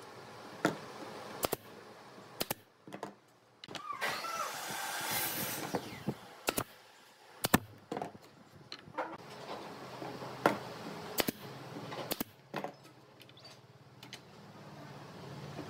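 Scattered sharp knocks and taps of pine boards being handled and set into a wooden chair frame, with a longer scraping noise about four seconds in.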